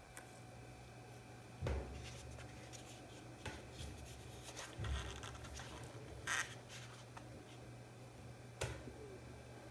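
Faint handling noise as gloved hands turn a paper ice cream cup: a few soft knocks and rubs over a steady low hum.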